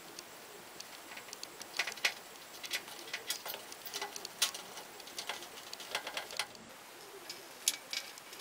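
Orange plastic wire nut being twisted by hand onto stranded copper wires: a run of small, irregular clicks and scrapes, thickest from about two to six seconds in, with two sharper ticks near the end.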